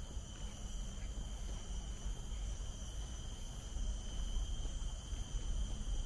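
Steady insect chorus: several high, unbroken tones that hold throughout, over a low rumble.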